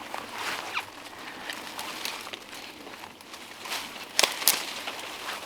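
Rustling and scuffing of people pushing on foot through undergrowth, with scattered crackles and two sharp snaps a little over four seconds in.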